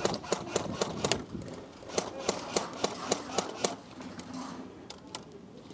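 Airsoft electric guns firing single shots in quick succession, about four a second, in two strings with a pause between, then a few scattered shots near the end.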